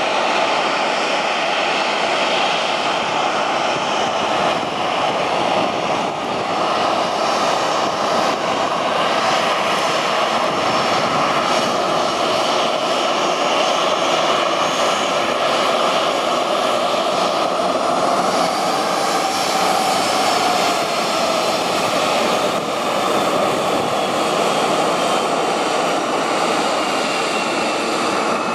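Boeing 737-800's CFM56 jet engines running at taxi power: a steady rushing whine as the airliner rolls past. A faint whine slowly falls in pitch over the last few seconds.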